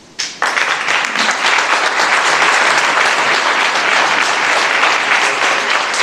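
Audience applauding, starting abruptly just after the start and keeping up steadily.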